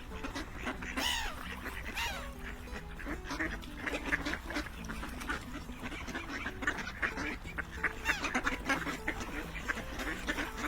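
A group of ducks quacking and calling, with many short calls overlapping one another.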